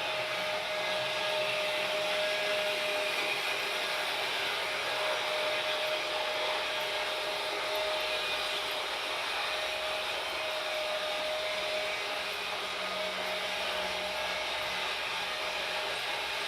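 Freight train running with a steady rolling noise, a thin steady tone that drops out briefly now and then riding over it.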